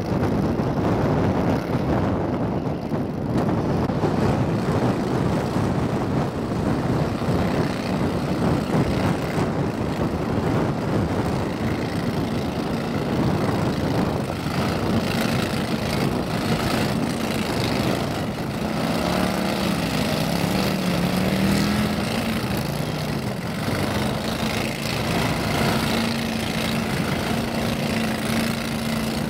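Mud motor engine on a jon boat running, driving the boat through shallow water and onto a mud flat. From about halfway through, a steadier engine note comes in, and it dips and rises in pitch for a few seconds around two-thirds of the way through.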